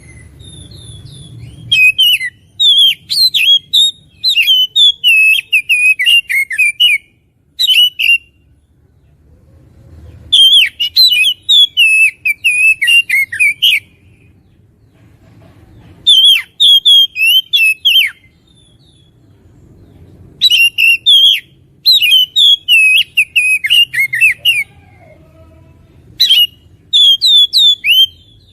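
Oriental magpie-robin singing loud bursts of rapid, varied whistled phrases, in six bouts of a few seconds each with short pauses between.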